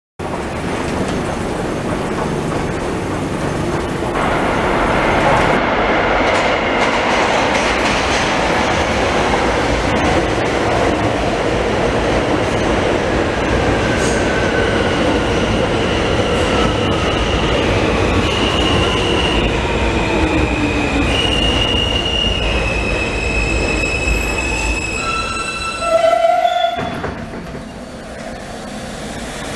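New York City subway train of R160 cars running along an underground station platform: a steady rumble of wheels on the rails, with the electric motors whining in tones that step up and down in pitch and one slowly falling tone. A brief, loud pair of tones sounds near the end, and the rumble then eases off.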